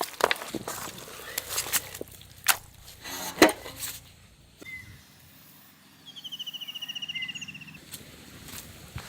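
A few sharp clicks and knocks in the first few seconds, then a bird's rapid high trill lasting about two seconds, falling slightly in pitch, with a couple of short chirps around it.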